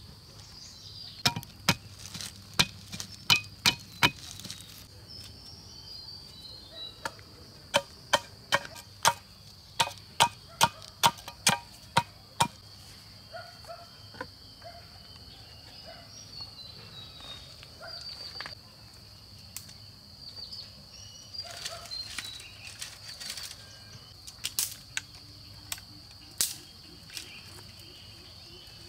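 Chopping with a blade: sharp strikes in two quick runs of about two a second, then slower, lighter knocks in the second half. Insects keep up a steady high drone throughout.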